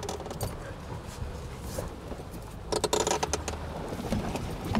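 Jeep Gladiator crawling up a rock ledge off-road: a low, steady engine rumble, with a short cluster of crunches and knocks from the tyres on rock and gravel about three seconds in.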